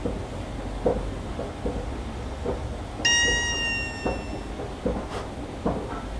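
KONE Stella hydraulic elevator car travelling up, with a steady low rumble from the drive and faint knocks. About three seconds in, a single ding of the arrival chime rings out and fades over about a second and a half, signalling that the car is reaching its floor.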